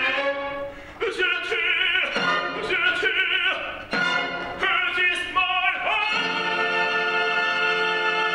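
Operatic tenor singing full-voiced phrases with vibrato over an orchestra. At about six seconds the sung line gives way to a long, steady orchestral chord.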